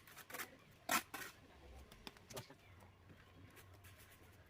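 A few sharp taps and scrapes of a mason's trowel on brick and mortar during bricklaying, the loudest about a second in.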